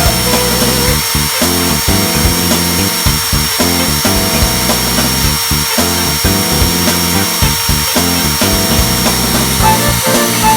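Background music with a steady beat over a continuous high-pitched electric motor whine from power-tool work.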